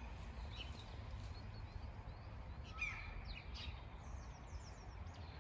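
Small birds chirping in short, scattered calls over a steady low background rumble; the clearest call comes a little before three seconds in.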